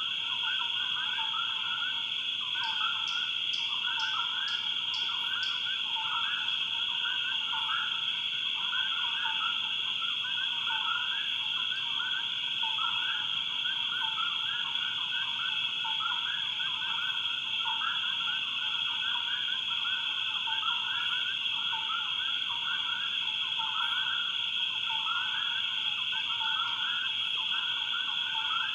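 Swamp chorus: frogs calling over and over in short, bending notes every second or so, over a steady high-pitched insect drone. A brief run of quick high ticks comes about three seconds in.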